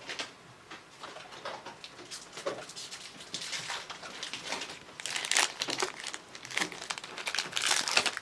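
Crinkling and rustling of foil trading-card booster pack wrappers and cards being handled, in short irregular crackles that are loudest about five seconds in and again near the end.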